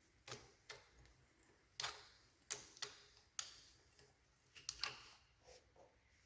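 Scattered light clicks and taps, about ten spread unevenly over six seconds, of tools and parts being handled during differential disassembly.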